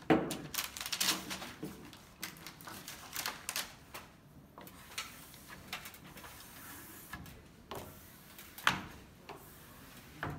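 Hand squeegee scraping and tapping over a sheet of smart film as it is pressed onto a glass door, with the film sheet crackling. Irregular clicks and short scrapes, with sharper knocks at the very start and near the end.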